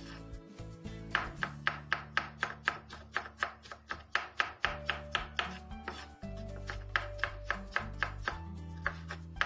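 Kitchen knife slicing red bell pepper on a wooden cutting board: quick, even strokes, about four a second, with a short lull near the start. Background music plays underneath.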